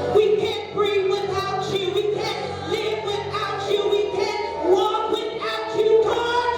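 Several voices singing a worship song together over instrumental accompaniment, with sustained notes and percussion hits.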